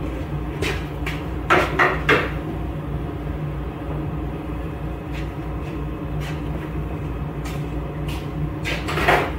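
A pickup truck's hood being unlatched and swung open: three sharp clacks close together about a second and a half in, with another clatter near the end, over a steady low hum.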